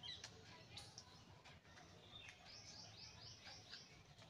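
Very quiet: faint crinkling of a paper banknote being folded by hand, with a bird chirping in the background. The bird gives a quick run of about six falling chirps, some four a second, a little past halfway.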